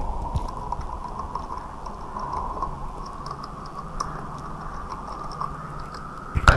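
Computer keyboard keys clicking irregularly as a word is typed, over a faint steady electrical hum and whine.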